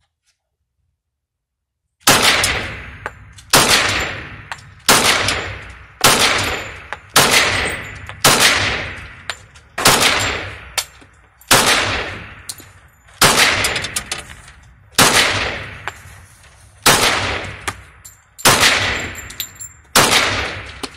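Glock 21 .45 ACP pistol firing a slow, steady string of about thirteen single shots, roughly one every second and a half, starting about two seconds in. Each shot rings on in the indoor range's echo.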